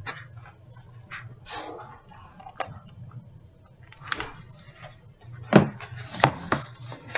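A picture book being handled close to the microphone as it is lifted and shown: soft paper rustles and several sharp taps and knocks, the loudest about five and a half to six and a half seconds in.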